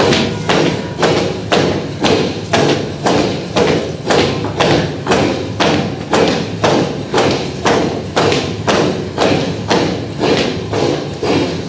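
A steady drum beat accompanying a dance, about two strong strokes a second with lighter strokes between.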